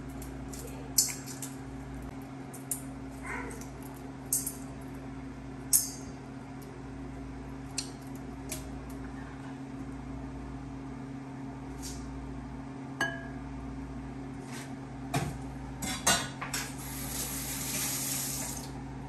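Scattered clinks and knocks of dishes and utensils on a kitchen counter as bowls of noodles are plated, over a steady low hum, with a couple of seconds of hiss near the end.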